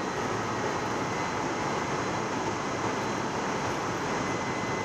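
Steady machinery noise, an even rush with a faint high whine running through it, like large fans or engines running without a break.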